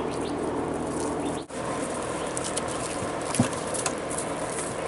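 Australian Shepherd puppies scuffling with toys on gravel and a plastic play mat: small scratches and clicks over a steady hiss, with one sharp knock about three and a half seconds in.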